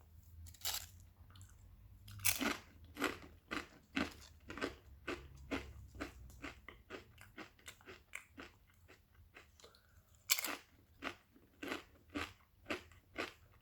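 Thick-cut kettle-cooked potato chips being bitten and chewed with loud crunching: a hard bite about two seconds in, then steady chewing crunches about two a second, and a second big bite about ten seconds in.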